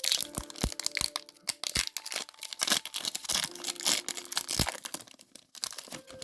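Foil booster-pack wrappers being torn open and crinkled by hand, a dense irregular crackling with a few sharper snaps, thinning out near the end.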